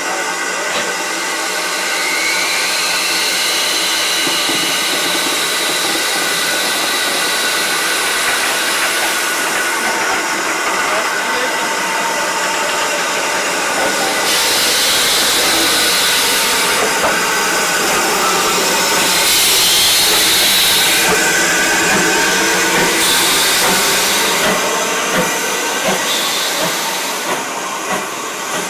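Steam locomotive hissing steadily, with several louder bursts of escaping steam from about halfway through.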